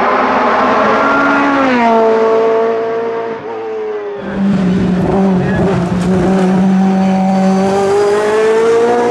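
Ferrari F430 race car's V8 engine passing at speed, its note dropping in pitch as it goes by, then rising again near the end as it accelerates.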